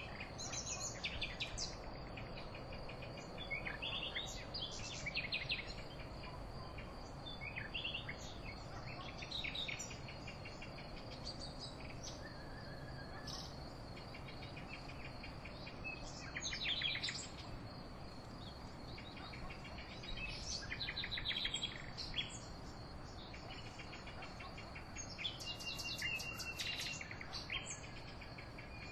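Songbirds singing in short, repeated phrases and trills at intervals, over a steady, unbroken high-pitched insect trill.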